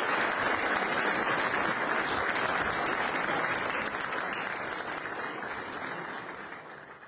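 Audience applauding, the applause slowly dying down and then fading out near the end.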